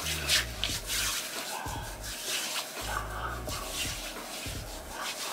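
Quiet background music with a low bass line that moves in steps.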